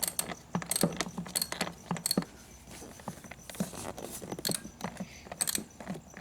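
Wrench and other metal tools clicking and clinking irregularly against a seat-mounting bolt as it is worked a little at a time in a cramped space. The clicks come in two spells: through the first two seconds, then again from about three and a half to five and a half seconds in.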